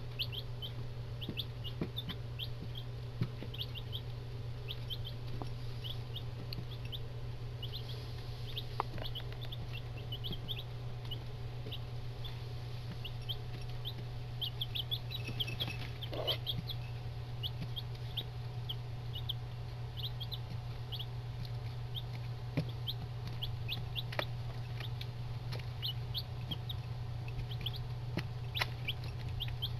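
Eight-day-old Buff Orpington and Barred Rock chicks peeping continuously in their brooder box: many short, high peeps, several a second, with a few faint clicks, over a steady low hum.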